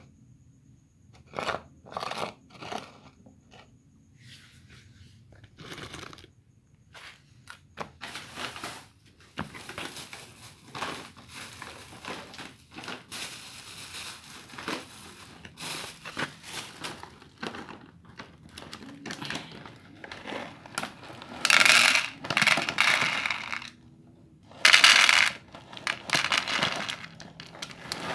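A plastic cat bowl knocking on concrete a few times, then a bag of cat food rustling and crinkling, with two loud pours of food into the plastic bowl near the end.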